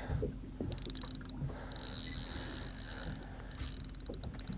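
Capricorn 4500 spinning reel being cranked under the load of a hooked fish, its gears whirring with small ticks as line is wound in.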